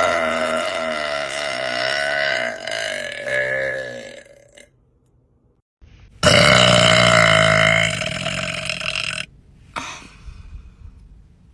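A person belching loudly: one long drawn-out burp of about four and a half seconds that fades away, then after a brief silence a second burp of about three seconds that stops abruptly.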